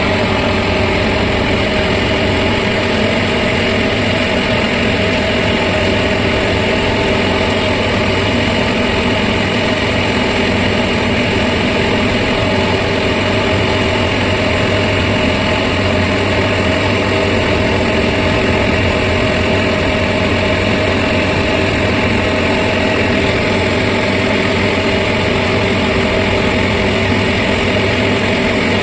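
Diesel engine of heavy construction machinery, an excavator or mobile crane, running steadily at a constant speed.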